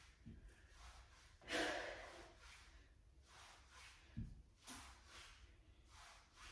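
A person breathing hard and fast during interval exercise, a string of quick breaths with one loud exhale about a second and a half in. Two dull low thumps, one near the start and one about four seconds in.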